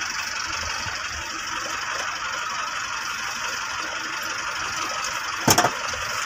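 Bus engine running slowly, heard from inside the bus cabin as a steady rumble and hiss, with one brief louder sound about five and a half seconds in.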